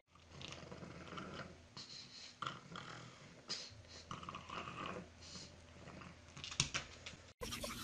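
Faint, short sounds from a pug, scattered through, with a sharp click near the end. The sound breaks off abruptly shortly before the end.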